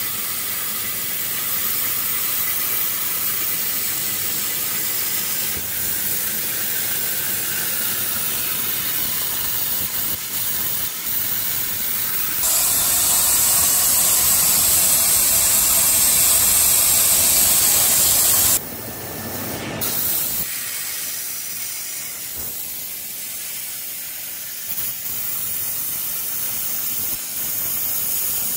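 Steady, loud hiss of a CNC plasma cutting torch cutting steel plate. It turns louder and brighter, with a thin high whistle, for several seconds around the middle, then drops to a softer hiss for the last third.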